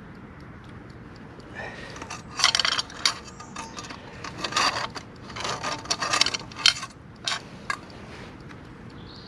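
Metal clinking and scraping: an irregular run of sharp clinks and scrapes lasting about six seconds, starting about one and a half seconds in.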